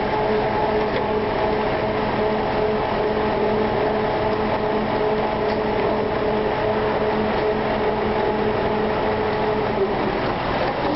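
Overhead bridge crane's electric hoist and travel drive running while carrying a suspended engine: a steady machine hum with a whine over it. The whine stops about ten seconds in.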